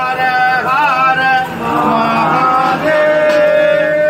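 A man singing a devotional Shiva chant in long, drawn-out, ornamented notes. Near the end he holds one note steadily for about a second.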